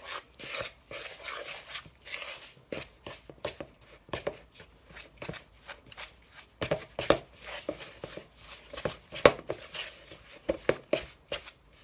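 Dumpling dough of flour, butter and soup liquid being mixed in a plastic bowl: a metal spoon scraping and knocking against the bowl, with irregular clicks and scrapes and a few louder knocks.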